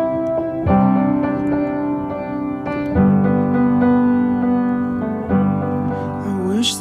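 Background music: slow piano chords held for two or three seconds each, changing three times.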